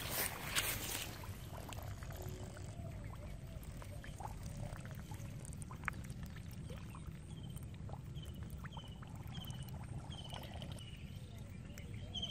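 Wet squelching and sloshing in shallow mud and water, with scattered faint clicks. In the second half, a string of short, high chirps falls in pitch, about two a second.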